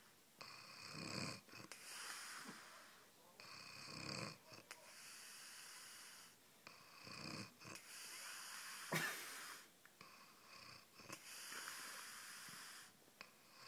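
Snoring: slow, repeated wheezy breaths about every two seconds, some with a low rasp, and one sharper, louder snort past the middle.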